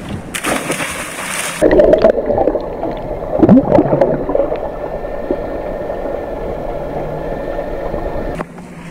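Underwater bubbling and gurgling from a swimmer's breath bubbles, muffled with the highs cut off as heard through an action camera's waterproof housing. It starts abruptly about a second and a half in, after a short stretch of open-air water and wind noise, and drops away shortly before the end.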